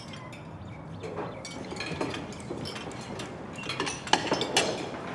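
Crockery and cutlery clinking as dinner plates and bowls are gathered and cleared from a table. There are scattered clinks, with a few sharper ones near the end.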